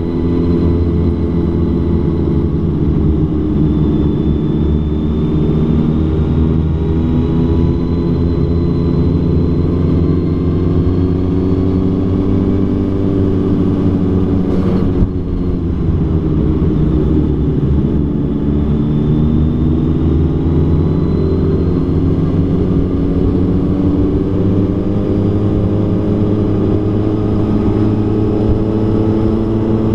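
A motor vehicle's engine running steadily, its pitch drifting slowly up and down, with one sharp knock about halfway through.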